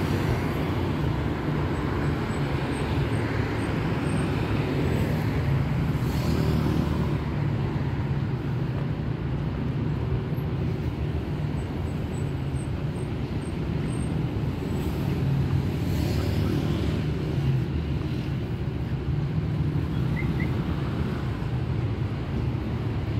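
City street traffic: a steady hum of car engines and tyres, with a couple of vehicles passing more closely about a quarter of the way in and again past the middle.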